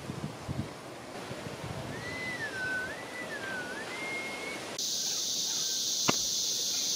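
Outdoor ambience with a steady hiss and one long whistle that dips twice, then rises and holds. About halfway through it cuts to a loud, steady, high-pitched drone of rainforest insects, with a single sharp click.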